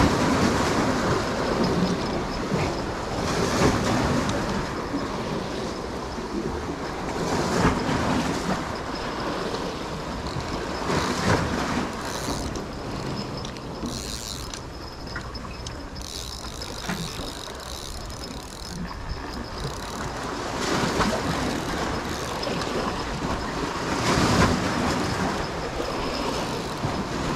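Sea waves surging and washing against concrete breakwater blocks, swelling every few seconds over a steady low rumble.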